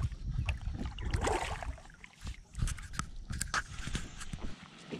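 Handling noise in a sit-on-top kayak: scattered clicks and knocks over a low rumble, which drops away about four and a half seconds in.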